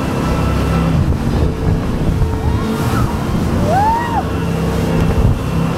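Jet boat running at speed, its wake spraying and wind buffeting the microphone. A short high tone rises and falls about four seconds in.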